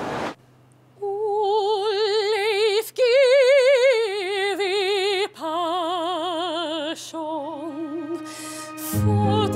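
A female opera singer singing solo, holding long notes with wide vibrato over a faint low held tone. Fuller accompaniment comes in near the end.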